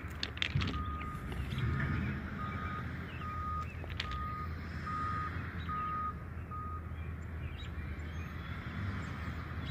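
A run of about eight short electronic beeps at one steady pitch, roughly one every 0.8 seconds, that stops after about six seconds. Under them is a steady low rumble, with a few sharp clicks near the start.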